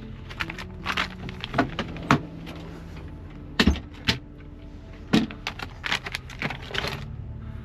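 Irregular clicks, clinks and knocks of small objects being handled, with a few sharper knocks scattered through.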